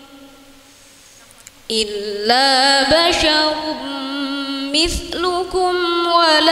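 A woman reciting the Qur'an in the melodic tilawah style: a short pause for breath, then, about two seconds in, a long, ornamented phrase of held, wavering notes that slide between pitches.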